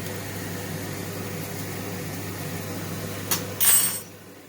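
Onions, ginger, garlic and chillies frying in oil in a pan: a steady sizzle over a low hum. A sharp click and a brief loud clatter come near the end, and then the sound drops away suddenly.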